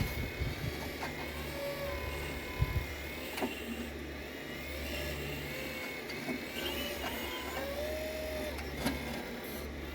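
Large 1:8 scale radio-controlled CAT 395 excavator running, its hydraulic pump whine wavering and dipping in pitch over a steady low hum, with a few sharp clicks and knocks.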